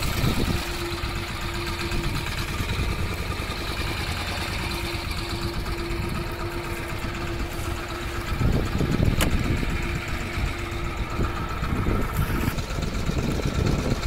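A fishing boat's engine idling steadily, with a single sharp click about nine seconds in.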